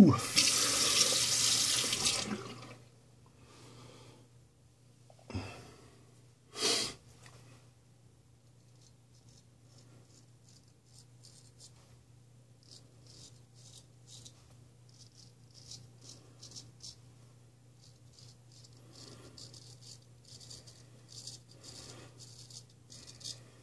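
A sink tap runs for about two and a half seconds, followed by two short knocks or splashes. After that come faint, short, repeated rasping strokes: a Ralf Aust 5/8 round-point straight razor cutting stubble through lather on the neck.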